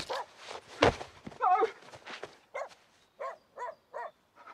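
A dog barking over and over in short, sharp barks, roughly two a second, with a thump about a second in.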